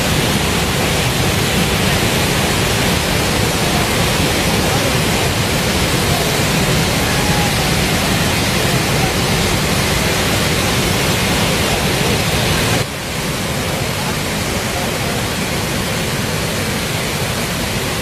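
Chappa Falls in spate, a wide sheet of muddy floodwater pouring over a rock lip, making a loud, steady rushing noise. About thirteen seconds in it drops out for an instant, then carries on slightly quieter.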